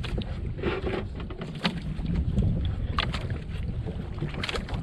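Steady wind rumble on the microphone aboard a small boat at sea, with a few sharp knocks and clicks scattered through it.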